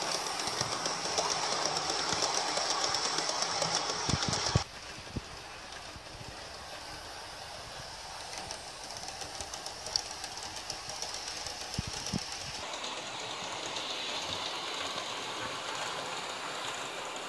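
Bachmann OO gauge Class 411 four-car EMU model running along the track: a steady motor whir with many small clicks as the wheels pass over the rail joints. It is louder for the first few seconds and drops suddenly about four and a half seconds in.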